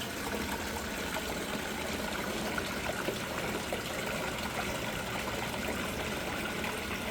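Waterfall: falling water running steadily with an even splashing hiss.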